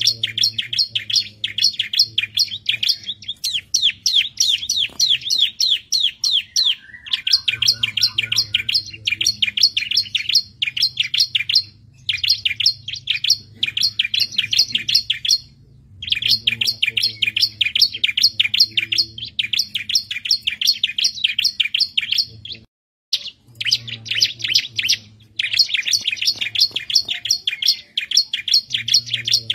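Bar-winged prinia (ciblek) singing: long runs of rapid, high chirps, about ten a second, broken by short pauses.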